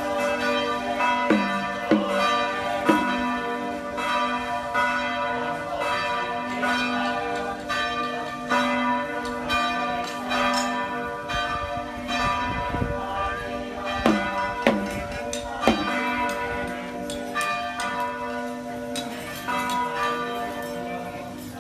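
Several church bells ringing together in a continuous peal, struck again and again with their tones hanging on and overlapping.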